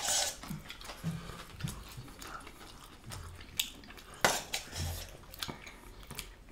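Metal serving spoon clinking and scraping against a stainless steel pot and plates as food is served, with a few sharp clinks, the loudest about four seconds in.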